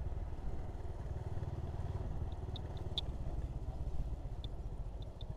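Motorcycle riding along: a steady low rumble of engine and wind, with a few short, faint high ticks in the second half.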